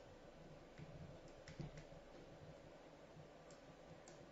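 Near silence, with a few faint, short clicks from a stylus tapping on a pen tablet while numbers are handwritten.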